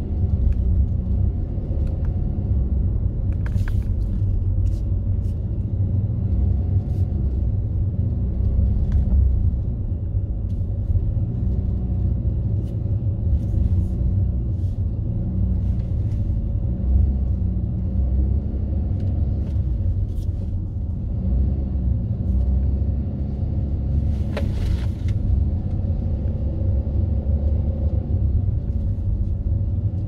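Steady low rumble of a car's engine and tyres heard from inside the cabin while driving slowly, with scattered faint clicks and one short hiss late on.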